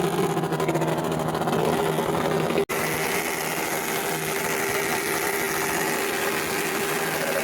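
Honda Super Cub's small single-cylinder four-stroke engine running steadily at a constant speed, the sound cutting out for an instant about two and a half seconds in.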